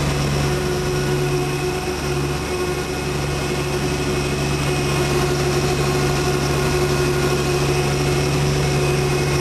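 Lawn mower engine running steadily as the mower moves across the grass, a constant hum with no change in speed.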